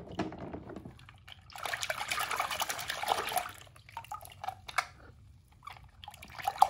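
Water sloshing and splashing in a plastic tub as a hand swishes a die-cast toy car through soapy water, in uneven bursts, the longest from about one and a half seconds in to three and a half.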